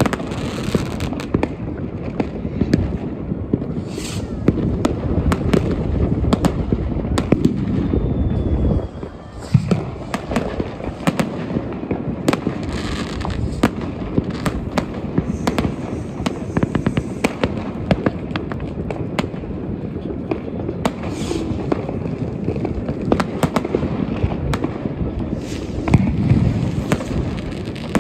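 New Year's Eve fireworks and firecrackers going off densely: a continuous stream of overlapping bangs and crackles over a low rumble, with a brief lull about nine seconds in.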